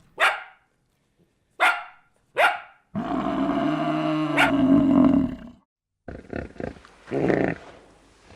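A dog barking three short times, then a longer drawn-out call lasting about two and a half seconds, followed by softer short sounds.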